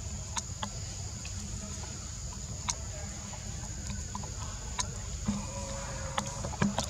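Forest ambience: a steady high insect drone over a low rumble, with scattered sharp clicks.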